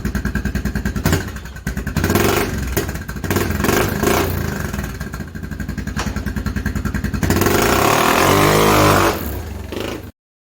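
1997 Polaris Magnum 425 ATV's single-cylinder four-stroke engine idling, then revved unevenly as the quad pulls away. It is loudest about eight to nine seconds in, with its pitch falling, and the sound cuts off abruptly just before the end.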